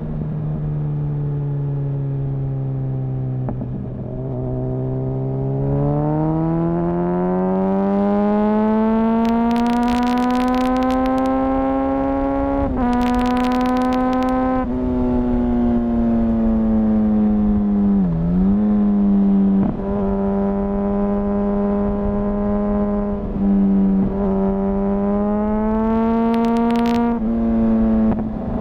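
2004 Honda CBR1000RR Fireblade's 998 cc inline-four engine, restricted to 35 kW, heard onboard under way: its pitch sags, then climbs steadily under acceleration from about six seconds in, with a brief dip once near the middle. It then holds fairly steady at cruise. Short noisy bursts sit over the engine three times.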